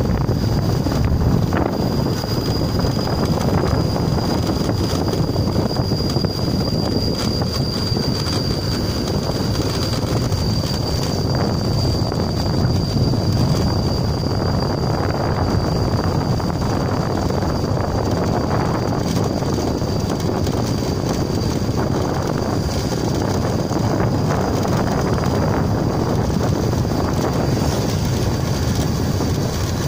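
Steady wind noise on the microphone and road noise from a moving vehicle, with a thin, steady high tone above it.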